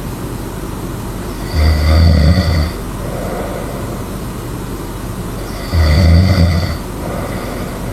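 A person snoring loudly: two snores about four seconds apart, each lasting about a second, with a steady background noise between them.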